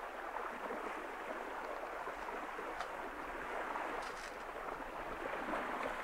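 Steady rushing wash of sea water along the hull of a sailing yacht running downwind under sail, with no engine running.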